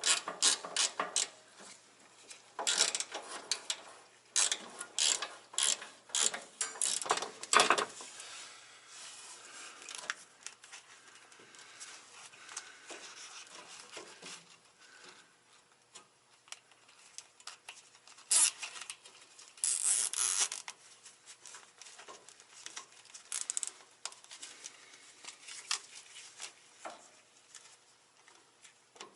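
Quick runs of ratcheting clicks from hand work on the truck. Dense rattling runs come in the first second and again from about three to eight seconds in. After that the clicks are sparser, with a louder cluster around eighteen to twenty seconds in.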